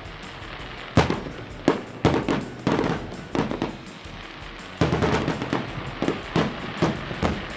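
Fireworks going off: a string of sharp bangs with crackling after each, starting about a second in and coming thick and fast from about five seconds, over background music.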